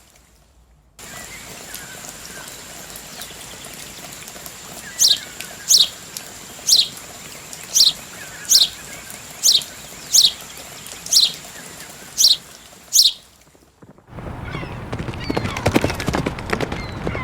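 Ambient sound effects: a bird repeats a sharp, quickly falling chirp about eleven times, roughly once a second, over a faint background with a steady high whine. Near the end it gives way to a louder clatter of quick knocks.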